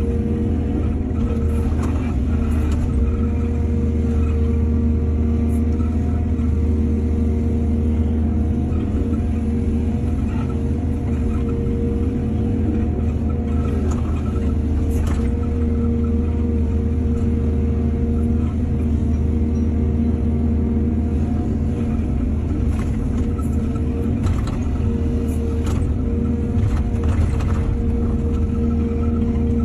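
Heavy diesel earthmoving machinery, an excavator at work, running steadily without let-up, with scattered short knocks and clatters.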